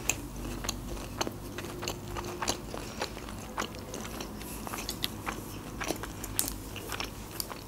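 A person chewing a bite of sushi roll made with shrimp and red fish, the mouth giving frequent small clicks and soft crunches.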